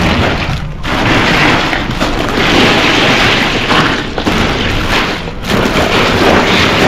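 Loose ice cubes crunching and rattling in a plastic esky as a hand pushes bagged fish down into the ice, with the plastic bags rustling.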